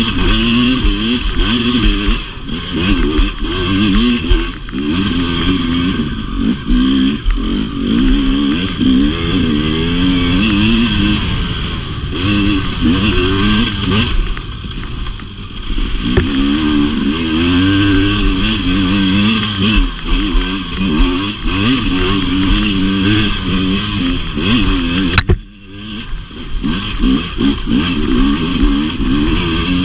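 2017 KTM 250 XC-W's two-stroke engine being ridden, its revs climbing and falling over and over as the throttle is worked, with a brief drop in the sound near the end.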